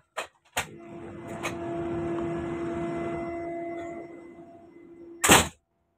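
A steady mechanical hum with a rushing of air comes in after a couple of sharp clicks, swells, then fades, and a loud thump cuts it off about five seconds in.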